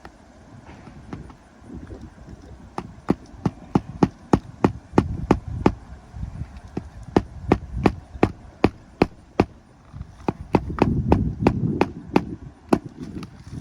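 Hammer striking a roofing nail on a shingle roof: a steady run of sharp blows, about three a second, lasting several seconds, with the nail hard to drive home.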